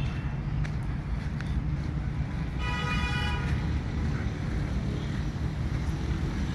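A vehicle horn sounds once for about a second, near the middle, over a steady low rumble of road traffic.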